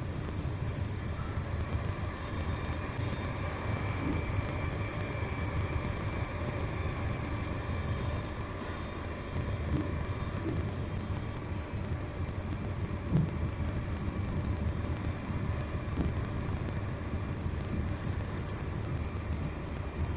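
WDS-580 BGA rework station mid heating cycle: the steady whirring rush of its hot-air heater blowers and fans, with a faint high whine and a few soft knocks.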